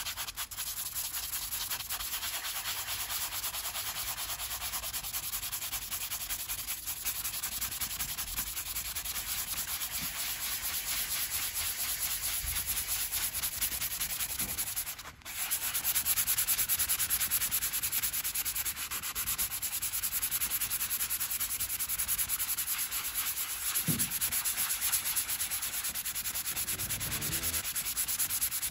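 Hand sanding with a sanding pad over dried leather filler on a vinyl car seat, the filler softened with solvent: quick back-and-forth rubbing strokes. They break off briefly about halfway through and come back a little louder.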